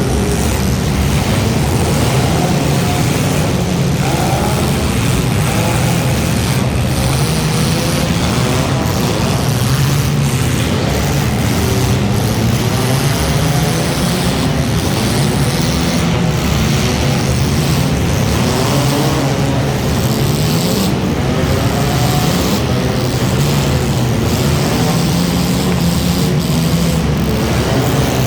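Several front-wheel-drive race cars' engines running together, their pitches rising and falling as they speed up and lift off around the track.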